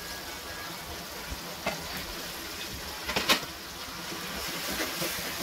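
Gravy frying softly in an aluminium karahi as ground saag greens are tipped in and worked in with a metal ladle, with a few ladle knocks against the pan, the loudest about three seconds in.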